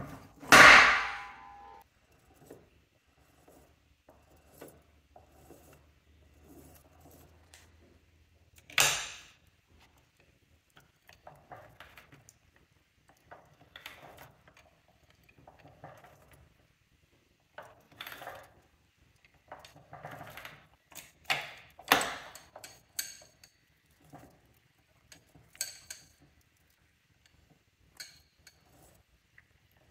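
Steel gears and shafts of an opened Mercedes G W463 transfer case clinking and clunking as they are handled, seated and turned by hand. A heavy metal clunk comes about a second in and another near nine seconds, with a run of sharper clanks around twenty to twenty-two seconds and light rattling between.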